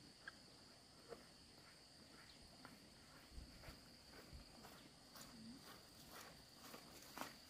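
Near silence: a faint steady high-pitched tone with scattered soft ticks and rustles.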